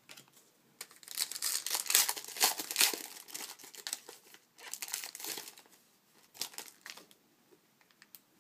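Crinkling and tearing of a foil trading-card pack wrapper being handled and opened, in a long run of crackles followed by two shorter bursts.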